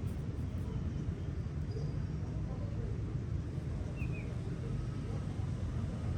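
Steady low rumbling background noise, with one faint short high squeak about four seconds in.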